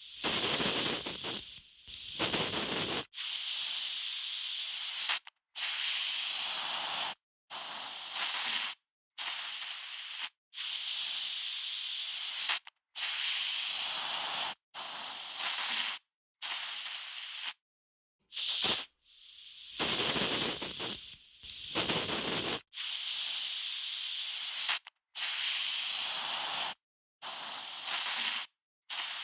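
Aerosol spray can sprayed in repeated hissing bursts of about one to two seconds each, with brief silences between.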